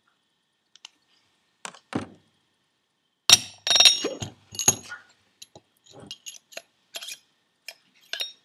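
Metal clinks and knocks as the turbine wheel's shaft is slid into a Holset HX40 turbocharger's bearing housing and the housing is handled. The sharpest, loudest clinks come in a cluster about three to five seconds in, with lighter taps scattered after.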